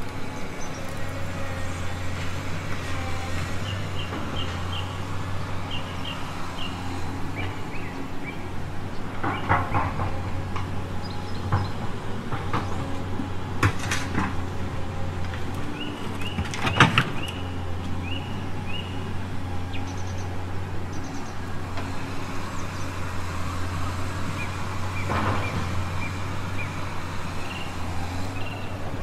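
Kabolite K336 radio-controlled hydraulic excavator working, its hydraulic pump giving a steady low drone. A few sharp knocks and clatters come now and then as the machine moves.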